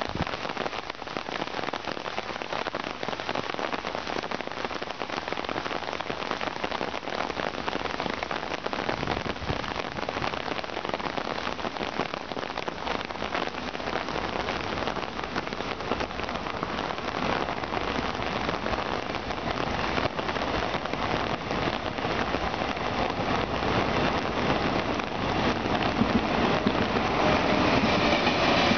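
Steady rain falling on ground and foliage, a dense even hiss of drops. Over the last few seconds a rumble builds as a high-speed train comes past on the tracks.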